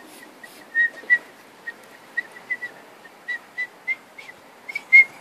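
A three-year-old child whistling: a string of short, breathy whistle notes on one high pitch, going slightly higher near the end.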